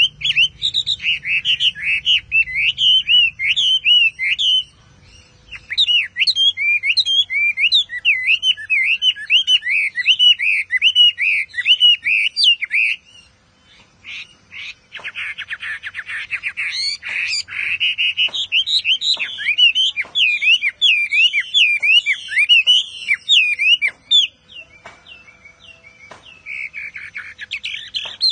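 Chinese hwamei singing: a loud, fast run of varied, sliding whistled phrases, broken by short pauses about five seconds in, about halfway and near the end, with a quick rattling trill just after the halfway pause.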